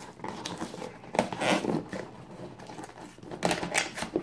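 Cardboard mailing box being torn open by hand: ripping and crinkling of the cardboard flap in irregular bursts, loudest about a second and a half in and again near the end.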